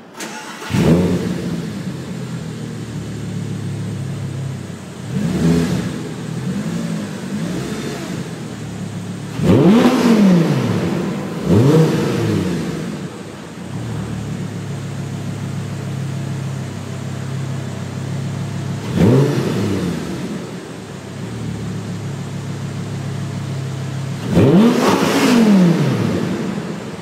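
Audi R8's 5.2-litre V10 idling, heard at the exhaust, with about six quick throttle blips. Each rev rises and falls back to idle within a second or two, and the last one near the end is the longest and loudest.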